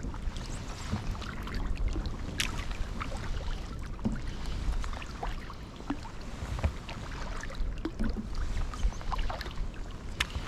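Kayak paddle strokes dipping and splashing in water, with scattered drips and small irregular clicks over a low rumble.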